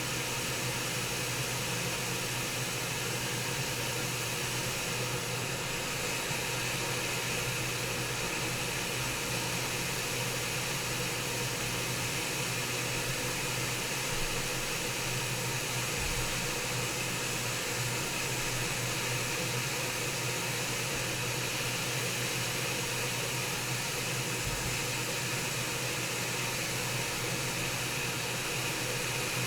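Hot air rework station blowing a steady hiss of air with a low hum, at 400 degrees, heating a laptop board to desolder a power button.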